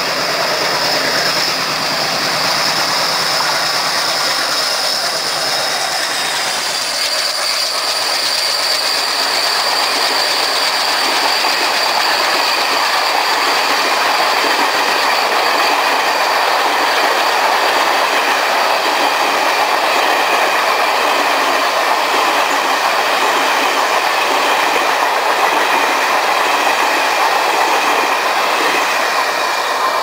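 A long passenger train rolls past close by, hauled by a WDM3A diesel locomotive with an ALCO engine, its coach wheels clattering over the rail joints. A thin high whine runs through the first half.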